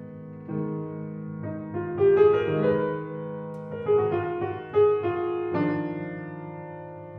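Solo piano playing a slow melody over held lower notes, new notes struck about every half second to a second.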